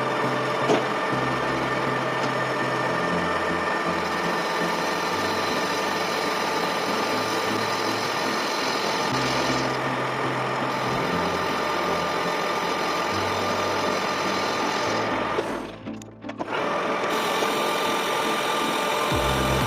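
A manual lathe running with a steady whine, mixed under background music whose bass line steps from note to note every second or two. Both dip out briefly about sixteen seconds in.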